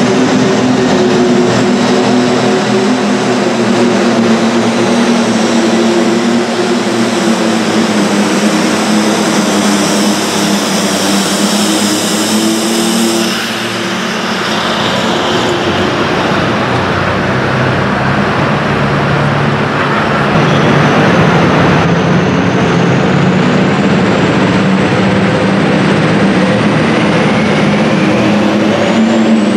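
Turbocharged diesel pulling tractors running under full load: an Oliver light super tractor's engine held at high, steady revs as it pulls the sled, a break about halfway through, then engine sound again and a rising whine near the end as the next tractor, an International, winds up.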